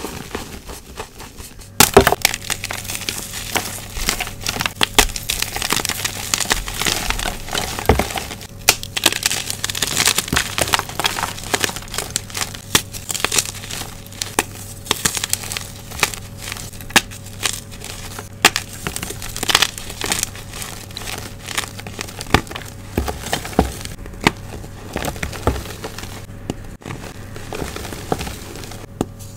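Blocks of gym chalk crushed and crumbled between bare hands, a dense run of sharp crunches and crackles as the chunks break apart. About two seconds in, the sound cuts abruptly to louder crushing.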